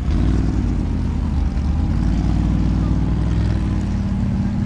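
An engine running at low revs, its pitch wavering slightly up and down.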